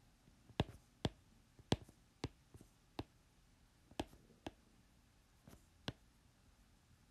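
Faint handwriting with a pen on paper: about ten sharp, irregularly spaced clicks as the pen tip comes down on the page.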